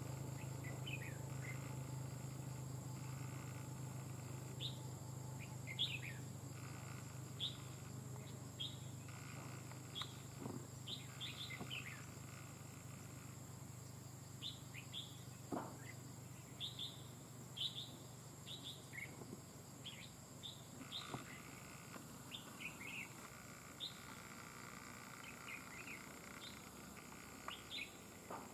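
Red-whiskered bulbuls calling: short, quick chirps that dip in pitch, coming singly and in quick clusters throughout. Under them is a faint low hum that fades away over the first half.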